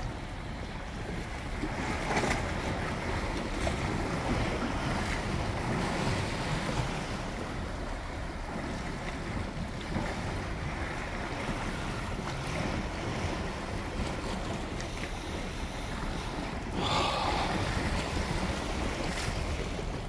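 Ocean waves washing against the rocks of a seawall, with wind buffeting the microphone; the noise swells and eases, with one louder surge near the end.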